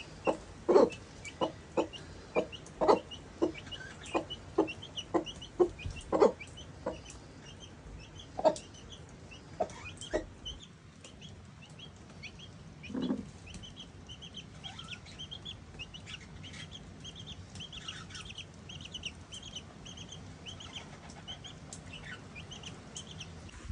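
Mother hen clucking in short, regular clucks, about two a second, while her newly hatched chick peeps rapidly; after about ten seconds the clucking dies away and the chick's high peeping continues.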